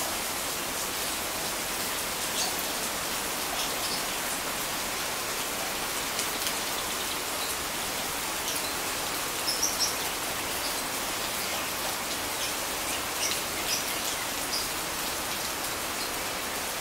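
Steady heavy rain falling on a clear roof panel and the garden around it. A few short, high bird chirps come through it, with a cluster about ten seconds in.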